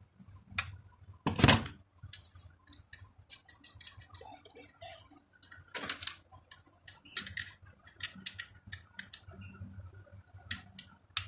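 Irregular small metal clicks and taps from a wrench and the parts of a car alternator being tightened and handled during reassembly, with one louder knock about a second and a half in.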